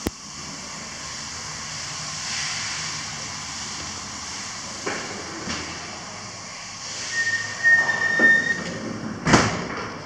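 Steady hiss of hot-spring water running into the bath. Then a sliding glass door rolls along its track with a rumble and a brief high squeal, stopping with a loud knock near the end.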